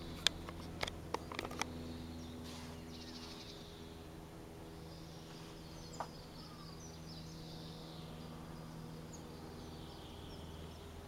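Faint, steady drone of a small propeller plane's piston engine overhead, with a few sharp handling clicks in the first two seconds.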